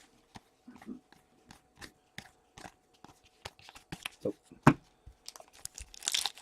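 Trading-card packs being handled and opened: scattered sharp clicks and small crinkles, then a louder burst of crinkling and tearing of a pack wrapper near the end.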